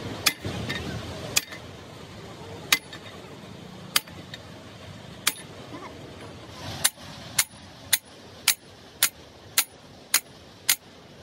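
Hand hammers driving a steel drift against a large roller bearing on a jaw crusher shaft: sharp, ringing metal-on-metal blows, about one every second and a half at first, then quicker, about two a second, from just past halfway.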